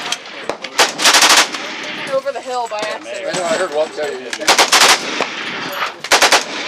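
Bipod-mounted machine gun firing on full auto in three short bursts of rapid shots: the longest about a second in, then two shorter ones near the end.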